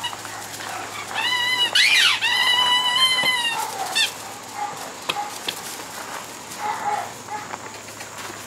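Merle American Bully puppies at play over a toy: a long, high, steady squeal starting about a second in, crossed near its middle by a quick squeak that rises and falls, then a few shorter, fainter squeaks.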